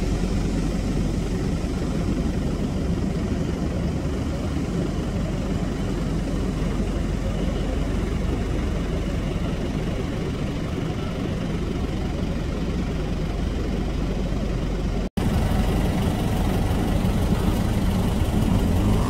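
Ocean surf rolling onto the beach, with wind buffeting the microphone as a steady low rumble. A momentary gap about fifteen seconds in, after which similar steady wind noise continues.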